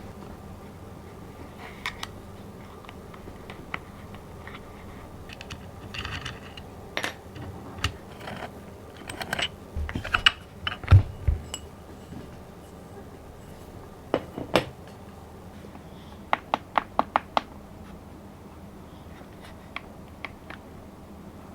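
Irregular clicks, light scrapes and small knocks from a hand taking apart an aluminium-cased keyboard, with a quick run of about six clicks in a second about three-quarters of the way through.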